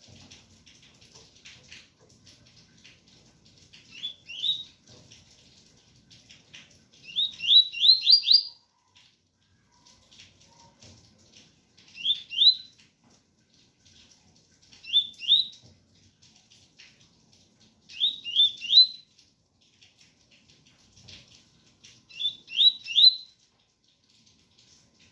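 A double-collared seedeater (coleiro) singing its clear "tui-tui" song: six short phrases of two to five quick rising whistled notes, a few seconds apart. Faint rain hiss runs underneath.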